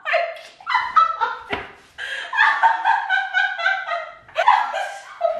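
Two women laughing hard in short, high-pitched bursts and squeals.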